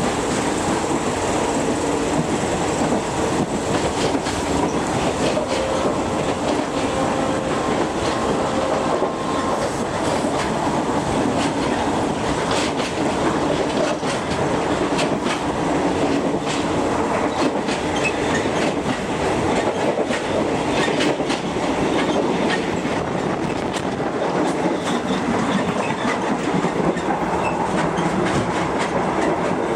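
Running noise of a State Railway of Thailand passenger coach heard from inside: a steady rumble of wheels on rail, with clicks and clacks from the track throughout.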